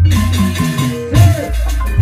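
Live Sundanese jaipongan (bajidoran) music: kendang hand drums striking heavy low beats over a gamelan ensemble, with a bending pitched note about a second in.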